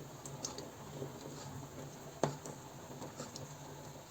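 A spoon knocking once against a pot of thick borscht about two seconds in, with a few faint clicks around it over a low steady hum.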